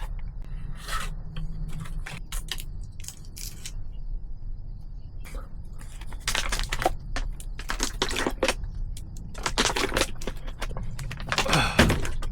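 Irregular crackling, cracking and clicking of plastic and foil packaging being handled, as of cold-medicine pills being pressed out of a blister pack.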